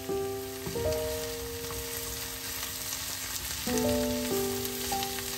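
Diced zucchini and carrot sizzling as they fry in oil in a non-stick pan, stirred with a wooden spatula. Soft background music of held notes plays over it, with new notes coming in near the start, about a second in and again near four seconds.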